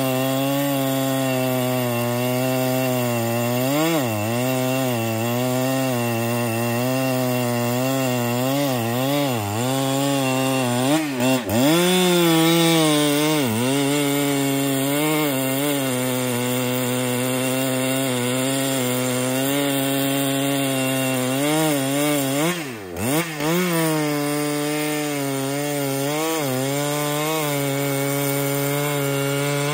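Husqvarna 395XP two-stroke chainsaw running at full throttle, its chain cutting through a large trembesi (rain tree) log. The engine pitch sags under the load of the cut several times and recovers, dipping deeper twice, about a third of the way in and again about three-quarters through.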